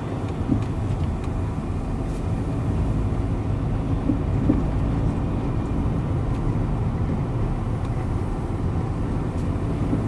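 Car driving on a tarred road, heard from inside the cabin: a steady low rumble of engine, tyres and wind.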